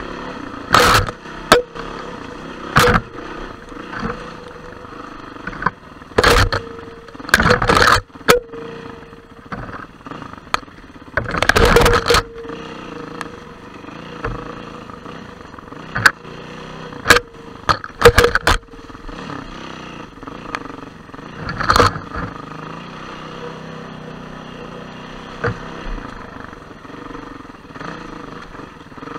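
Trail motorbike engine running steadily while riding a rough, overgrown lane, broken by repeated sharp knocks, clatters and scrapes, with a longer rushing scrape about eleven seconds in and the loudest knocks near eighteen seconds.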